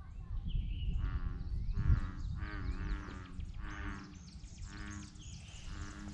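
A series of about five low-pitched, drawn-out animal calls, roughly one a second, over a steady low rumble of wind on the microphone.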